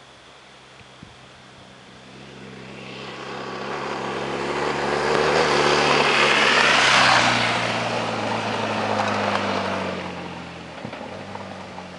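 Adventure motorcycle riding past on a gravel road, its engine and tyre noise on the gravel swelling as it approaches. It is loudest about seven seconds in, then fades as it moves away.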